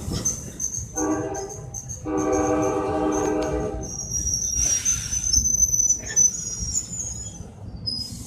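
Passing train's multi-tone air horn blowing a short blast and then a longer one, sounded as a greeting, over the low rumble of the train. A high-pitched squeal from the wheels follows as it rolls on.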